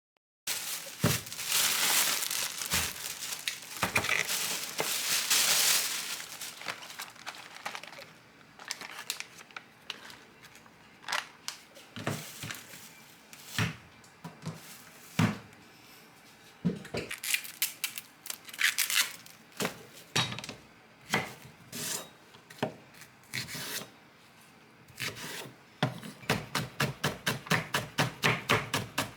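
Packaging crinkling and being torn open for the first few seconds, then scattered knocks and clicks of kitchen handling. Near the end comes knife chopping on a cutting board, about four even strokes a second.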